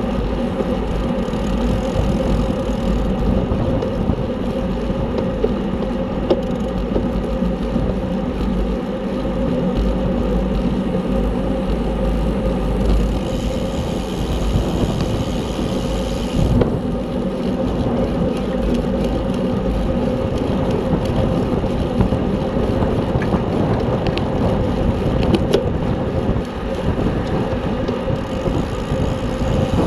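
Road bicycle ridden at race speed: a steady whir of tyres and drivetrain over a constant heavy low rumble, with no let-up.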